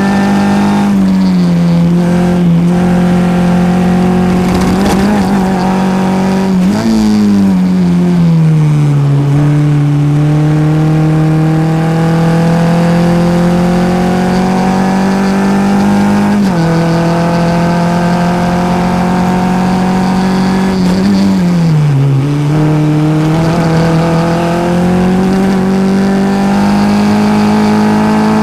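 Formula F race car's four-cylinder engine heard from the cockpit, pulling hard with its pitch climbing steadily along the straights. About a quarter of the way in and again about three quarters through, it sweeps down as the car brakes and downshifts for a corner. A little past halfway it drops sharply on an upshift.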